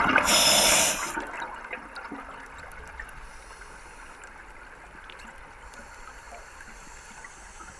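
A scuba diver's exhaled bubbles gurgling loudly past the underwater camera, cutting off about a second in and leaving a faint steady underwater hiss.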